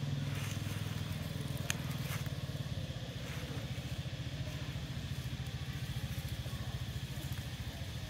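An engine running steadily at low revs: a low hum with a fast, even pulse. A single light click comes a little under two seconds in.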